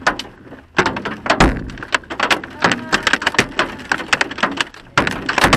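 Hailstones pelting a truck's windshield and body, heard from inside the cab: a dense, irregular clatter of sharp hits. It picks up about a second in and grows heavier near the end.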